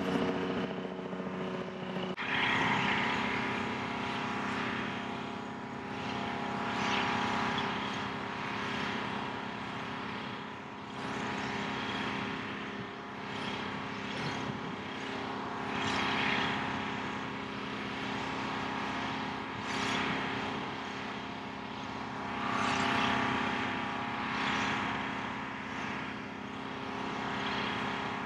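Diesel engine of heavy lifting equipment running steadily at a constant speed, stepping up in engine speed about two seconds in, with a hiss that swells and fades every few seconds.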